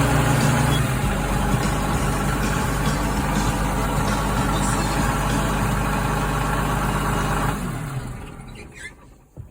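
Case 2590 tractor's turbocharged six-cylinder diesel running just after start-up: a little louder for about the first second, then idling steadily. The sound dies away near the end.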